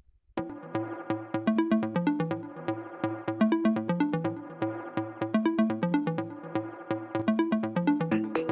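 Electronic background music with a steady beat and short repeated notes, starting after a brief silence about half a second in.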